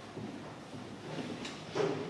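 Low room sound of an indoor 10 m air-rifle range, with a faint sharp tick about one and a half seconds in and a short dull knock near the end.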